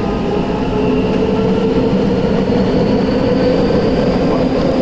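Tokyo Metro 8000 series subway train running through a tunnel, heard from inside the car: a steady loud rumble of wheels on rail and tunnel noise, with a faint motor whine slowly rising in pitch.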